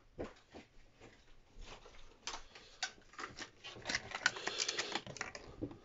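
Hands handling a roll of thread tape and small parts on a wooden desk: irregular light clicks and rustling that grow busier and louder about two seconds in.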